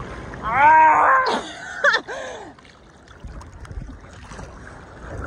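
A person's loud wordless shout, rising then falling in pitch, about half a second in, and a shorter vocal sound near two seconds. After that, faint sea water lapping and splashing at the camera.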